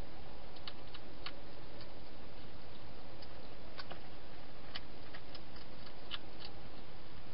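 Wild hedgehog chewing food inside a plastic feeding box, about a dozen short, sharp crunching clicks at irregular intervals over a steady hiss.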